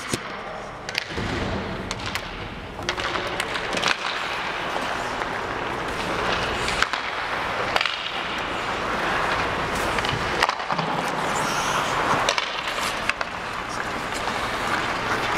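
Hockey skate blades scraping and carving on the ice, with sharp clacks of sticks and puck now and then.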